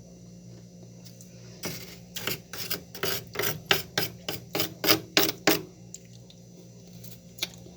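Frost being scraped off the inside wall of a freezer, a quick run of about a dozen sharp scraping strokes, roughly three a second, starting about a second and a half in and stopping a couple of seconds before the end.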